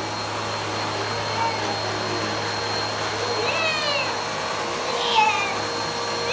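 Vacuum cleaner running with a steady hum. From about three and a half seconds in come a couple of short, high-pitched calls that rise and fall.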